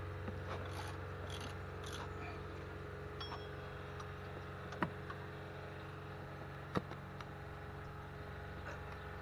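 Ratchet and 15 mm socket working alternator mounting bolts loose, with light metal ticking in the first couple of seconds and two sharp metal clinks about five and seven seconds in, over a steady low hum.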